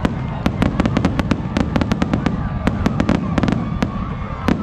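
Fireworks display going off in a rapid, dense string of bangs and crackles, several reports a second over a continuous low rumble.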